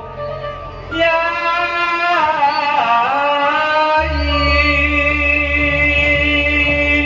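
Live Javanese song accompaniment: a long held sung note that dips in pitch and comes back up, over instrumental backing. A deep bass comes in about four seconds in.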